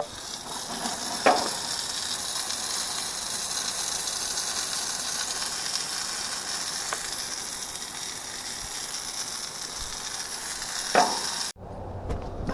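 Water spraying in a steady hiss from a hose nozzle onto an air-conditioner's outdoor unit, to cool an overheated compressor tripped on its thermal overload. The spray starts suddenly and cuts off suddenly near the end, with a short sharp click shortly after it starts and another just before it stops.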